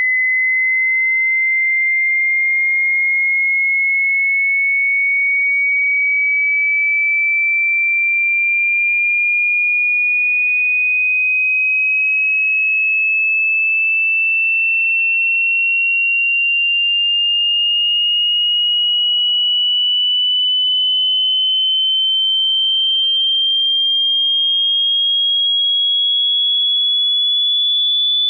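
Pure sine-wave test tone of a hearing test, a single steady tone gliding slowly upward in pitch from about 2,000 Hz to about 3,500 Hz.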